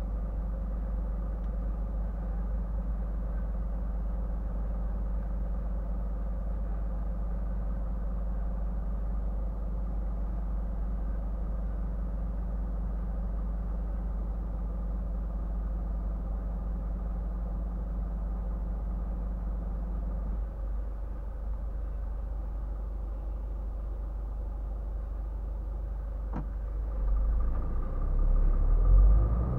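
Scania R450 truck's six-cylinder diesel idling steadily, heard from inside the cab. Near the end the engine note rises and gets louder as the truck moves off.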